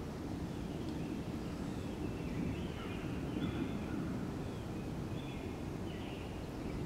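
Steady low outdoor background rumble, with faint short bird chirps several times across it.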